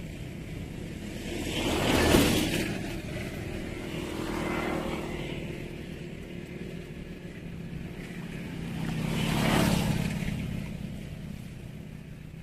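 Road vehicles passing one after another, each rising and fading away. The loudest passes about two seconds in and near the tenth second, with a smaller one in between.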